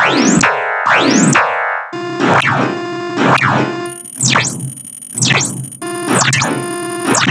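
MIDI keyboard playback of a black-MIDI noise piece: huge clusters of notes sound at once and sweep down and up the keyboard about once a second, making a dense, clashing wall of synthesized tones.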